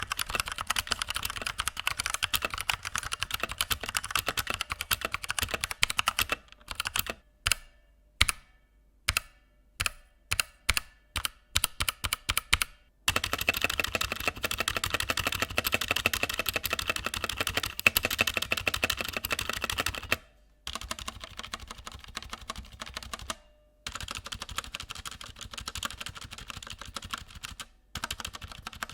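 Typing on a Redragon K530 60% mechanical keyboard with tactile brown switches (Outemu-made). A fast run of key clicks gives way to about a dozen single key presses struck one at a time, then fast typing resumes and carries on more quietly for the last third.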